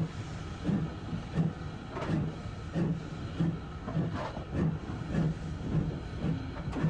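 Southern Region M7 class 0-4-4 tank steam locomotive working under steam, its chimney exhaust beating in a slow, even rhythm of a little under two chuffs a second, with a hiss of steam.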